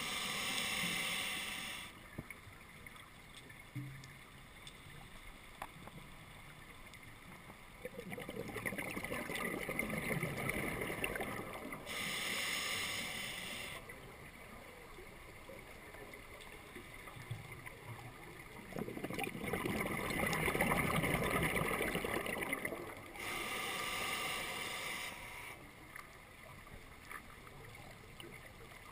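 Scuba diver breathing through a regulator: three sharp hissing inhales, alternating with two long bubbling exhales.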